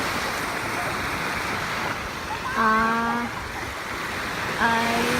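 Steady rush of sea surf, with two short held tones, each under a second, about two seconds apart.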